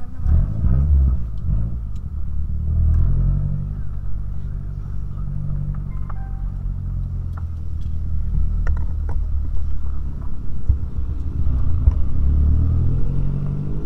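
Car engine and road noise heard from inside the cabin while driving. The low engine note shifts in pitch a few times as the throttle changes.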